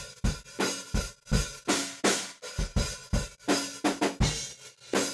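Recorded drum kit heard as the difference signal between the raw track and its compressed copy, one of them put out of phase: a steady beat of hits in which the bass drum and snare drum attacks punch through, the part the compressor removed.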